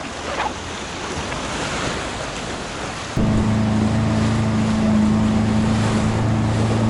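Sea surf and wind washing over the rocks, then about three seconds in a loud, steady low hum starts abruptly and becomes the loudest sound.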